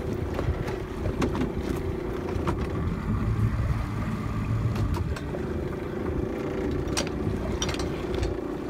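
A steady motor hum aboard a small lobster boat, holding a low pitched drone that eases in the middle and strengthens again about five seconds in. A few sharp knocks, likely the hook and line against the boat, sound over it.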